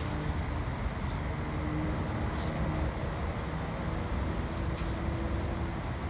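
Steady road traffic noise: a low rumble of vehicles with a faint engine hum that comes and goes.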